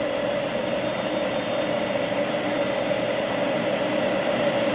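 Electric rotary hammer driving a carbide bit into concrete, running steadily as it drills a hole.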